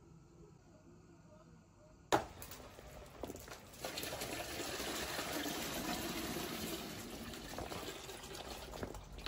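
Water running steadily, starting abruptly with a sharp click about two seconds in and growing louder a second or so later, after a faint low hum.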